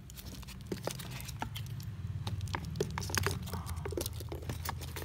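Handling noise: rapid crackling and small clicks as an Invicta Pro Diver wristwatch with a metal bracelet, on its foam pillow, is turned in the hand and set down into its box. A low steady hum runs underneath.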